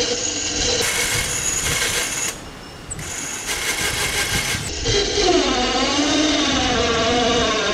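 Electric winch motor whining under load as it drives the go-kart's chain in reverse, its pitch dipping and rising with the strain. There is a short break in the sound about two and a half seconds in. The motor is too weak for the kart, as the builder says.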